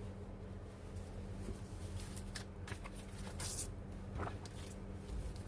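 Soft cloth wiping and rubbing the typewriter's key-panel pad, giving light scattered scuffing sounds with a brief sharper scrape about three and a half seconds in, over a steady low electrical hum.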